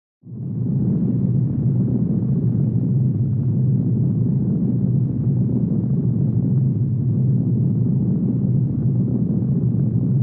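Earthquake sound effect: a low, steady ground-shaking rumble that rises out of silence within the first second and then holds level.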